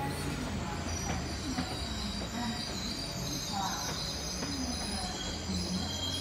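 TER multiple unit moving along a station platform, its wheels squealing on the rails in steady high tones over a low running hum.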